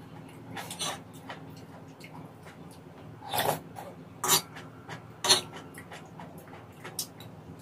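Eating sounds: a metal fork clicking and scraping on a nonstick pan as food is scooped up, with chewing. There are a few sharp clicks, three louder ones about a second apart in the middle, over a low steady hum.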